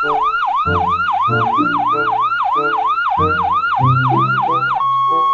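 Ambulance siren in a fast yelp, a falling-and-rising wail repeating about three times a second, over a low stepping melody. Near the end it changes to a steady tone.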